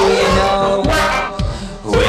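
Music with a steady drum beat, about two beats a second, and singing.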